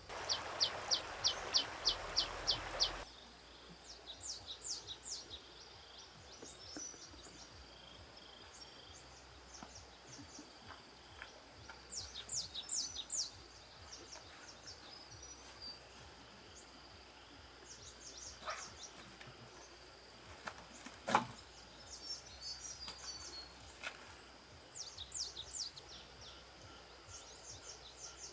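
Small birds chirping in short, quick clusters of high notes over a faint steady high tone. For the first three seconds a louder rushing noise carries a rapid run of chirps, about ten in all, and a single sharp click comes about three quarters of the way through.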